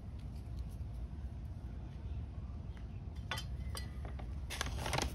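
Hand garden tool scratching and scraping through potting soil in a plastic pot, loosening it. There are a few sharp scrapes and clicks about three and a half seconds in and a busier run of them near the end, over a steady low hum.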